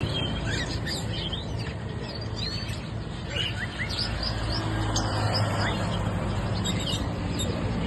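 Small birds chirping and twittering, a busy run of short calls and quick rising notes, over a steady low hum.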